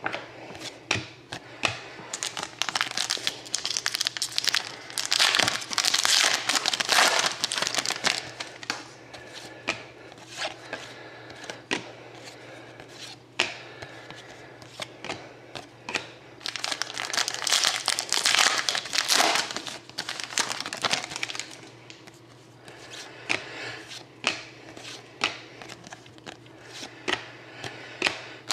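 Trading card pack wrappers crinkling and tearing as hockey card packs are opened, with cards sliding and tapping against each other as they are sorted. The crinkling comes in two longer stretches, one a few seconds in and one past the middle, with short clicks and taps in between.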